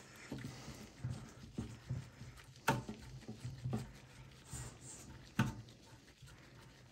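Faint scattered clicks and taps of small parts being handled inside a desktop computer's sheet-metal case, with two sharper clicks about two and a half and five and a half seconds in, over a faint low hum.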